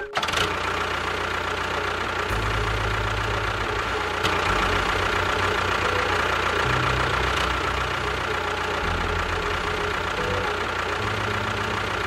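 Tractor engine sound running steadily with a low, knocking chug, its low throb shifting in speed every couple of seconds. It accompanies a toy tractor, most likely as a dubbed sound effect.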